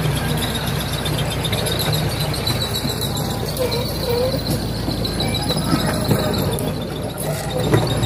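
Miniature ride-on train running along its track, heard from a passenger car: a steady rumble of engine and wheels with scattered sharp clicks.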